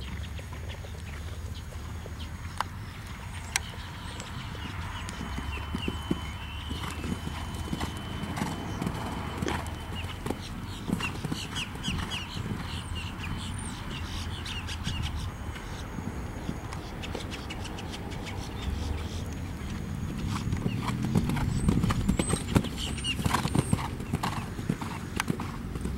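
A ridden horse's hooves beating on arena sand, first at a trot and then at a canter. The hoofbeats grow louder toward the end as the horse passes close.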